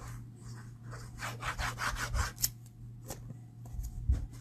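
Liquid glue bottle's applicator tip rubbing and scraping across cardstock as a line of glue is drawn around the edge, in a quick run of scratchy strokes, followed by a few sharp taps as the glued paper is handled.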